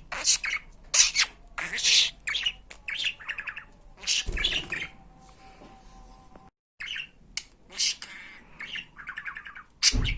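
Pet budgerigar chattering: quick runs of high chirps, squawks and warbling, breaking off briefly a little past halfway.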